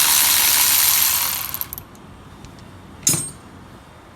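Electric ratchet spinning out a loosened 17 mm brake caliper bolt, running loud and steady, then stopping about a second and a half in. A single sharp metallic click follows about three seconds in.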